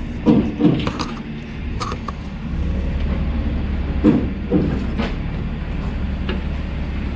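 Car engine running with a steady low rumble that gets louder about two and a half seconds in, with several short knocks over it.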